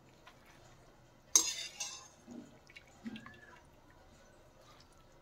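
Wire spider strainer knocking and scraping against a metal kadhai while boiled macaroni is scooped out of the water: one sharp clatter about a second in, then a few fainter knocks and water drips.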